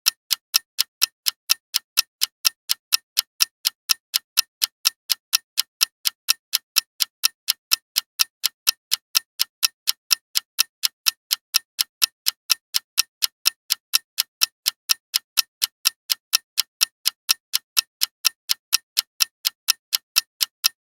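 Clock ticking steadily, sharp crisp ticks at about three a second in an even rhythm.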